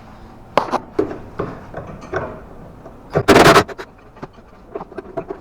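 Metal tool work on a car's front suspension: several sharp clanks and taps, then a little over three seconds in, a loud burst of noise lasting under half a second, followed by lighter taps.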